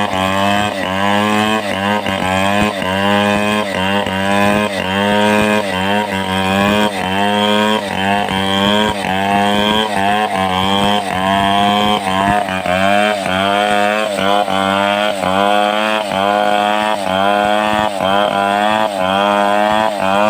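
Stihl 070 two-stroke chainsaw running at high revs through a long cut in a log. Its pitch dips and recovers about every half second as the chain loads in the wood.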